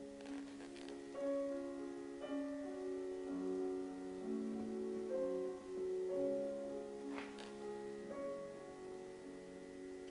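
Piano music, a slow melody of long held notes, with a faint short knock about seven seconds in.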